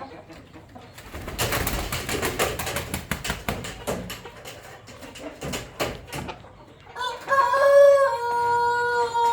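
A Saigon fighting rooster crows once, long and drawn out, starting about seven seconds in and stepping down in pitch partway through. Earlier comes a few seconds of rapid rustling and clattering.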